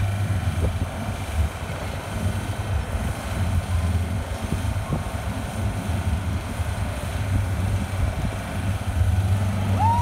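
Skid steer loader's engine running steadily under load as the machine drives across a dirt course, a low steady rumble.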